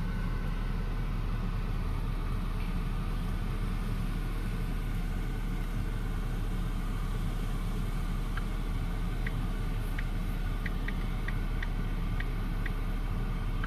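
A car's engine idling steadily, heard from inside the cabin. A few faint short ticks come irregularly in the last few seconds.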